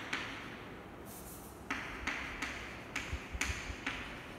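Chalk writing on a chalkboard: a string of sharp taps as the chalk strikes the board, with scratchy hiss between the strokes.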